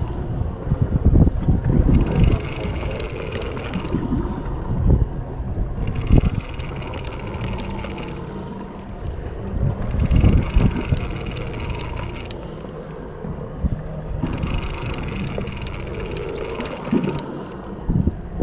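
Wind buffeting the microphone on a fishing boat, over a faint steady hum from the boat's engine. A hiss in the upper range comes and goes about every two seconds.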